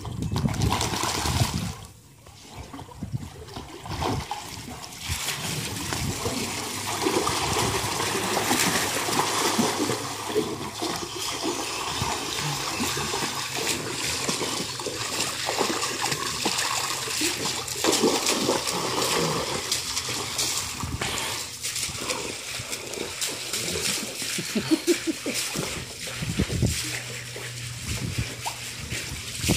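Water splashing and spattering as a dog wades and bites at the stream from a garden hose in a shallow pool, with the hose water running steadily into it.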